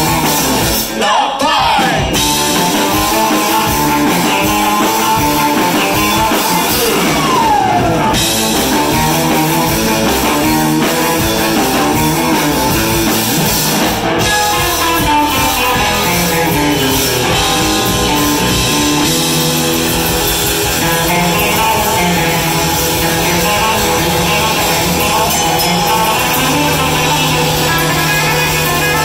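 Live surf-rock band playing loud: electric guitars, a bass balalaika and a drum kit, with sliding guitar notes about a second in and again around seven seconds.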